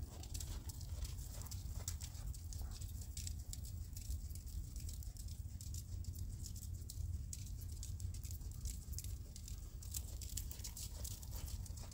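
Horse's hooves on sand arena footing at a trot: a soft, irregular patter of hoofbeats over a steady low rumble.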